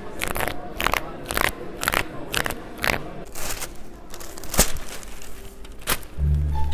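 Short bursts of crinkling and rustling, about two a second at first and then more spread out, from a packet wrapper and then a newspaper being handled. Music comes in near the end.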